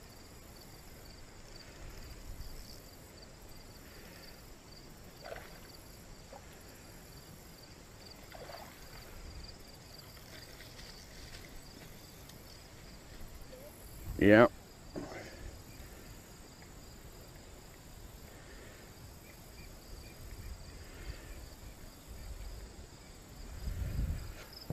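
Insects chirping in a steady, even, rapid pulse, with a brief low rumble near the end.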